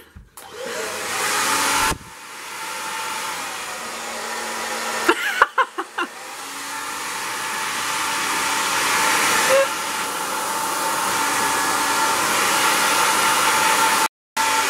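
Handheld hair dryer running steadily, blowing on long wet hair; an even hiss with a faint steady hum. It drops out briefly about two seconds in and again near the end, with a few short sharp sounds about five seconds in.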